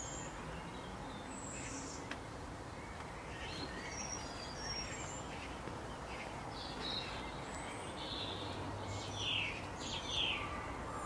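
Woodland birds calling: scattered short high chirps and whistles over a steady background hiss, with a busier, louder run of downward-sliding calls about nine to ten seconds in.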